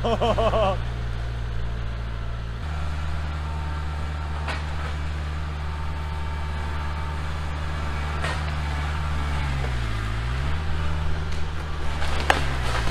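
Kubota L4701 compact tractor's four-cylinder diesel engine running under load while pushing against a tree. Its note changes about three seconds in, and its pitch dips briefly and recovers twice near the end. A few sharp snaps sound over it.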